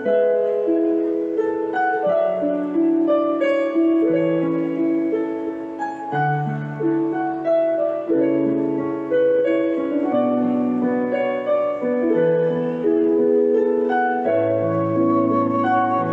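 Live instrumental ensemble music: bowed violin and strings holding slow, sustained notes over a plucked, harp-like accompaniment.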